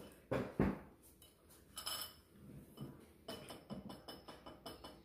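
Small clicks and clinks of crab-leg shells and a fork knocking against a bowl of butter sauce, a few at first and then a quick run of them in the last couple of seconds.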